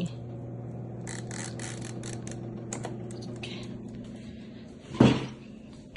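Air fryer humming steadily while food is loaded into it, with light clicks and rattles of handling in the first half and one sharp thump about five seconds in.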